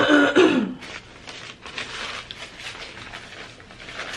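A short vocal sound with wavering pitch at the start, then a run of irregular crackly, wet clicks from close-up eating of snow crab legs in sauce.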